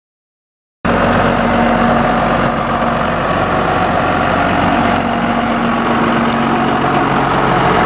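Kenworth pickup-conversion truck's diesel engine running steadily at low speed as the truck rolls past; the sound cuts in suddenly about a second in.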